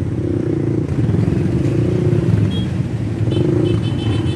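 Motorcycle engine running low and steady while crawling through a traffic jam among other motorcycles and tricycles. Faint short high tones repeat in the second half.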